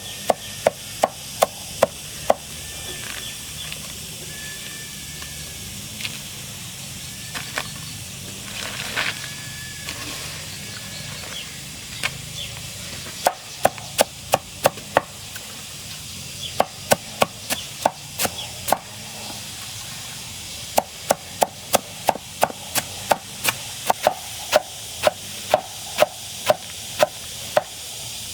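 Runs of quick, even chopping strokes, about three a second, with pauses between the runs: a blade chopping banana plant stalk into feed for chickens and ducks.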